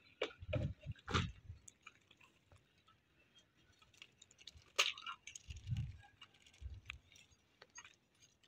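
Scattered light clicks and knocks of a paintbrush being dipped and worked in a metal paint tin, with a few dull low thumps in between.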